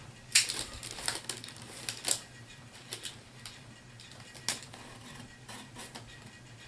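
Packaging of HeroClix booster packs being handled: irregular light clicks, taps and crinkles, with a sharper click about a third of a second in and another a little past the middle.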